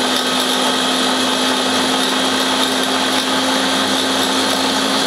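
Beaba Babycook steamer-blender's blender motor running steadily at one pitch, pureeing steamed butternut squash.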